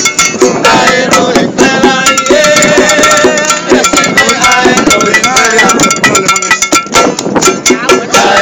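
Two street musicians playing live: voices singing over a quick, regular percussion beat.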